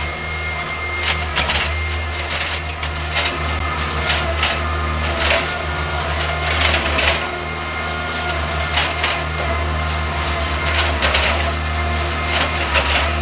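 Rail spike puller machine's engine running steadily, with irregular metallic clanks and clicks every second or so.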